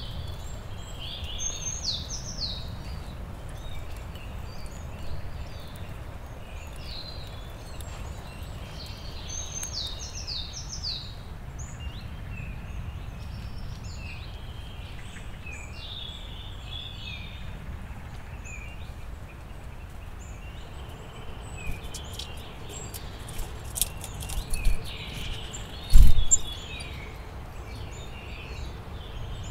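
Wild songbirds chirping and singing, many short high calls and quick trills throughout over a steady low background. Near the end come several sharp clicks and taps, then one loud thump a few seconds before the end.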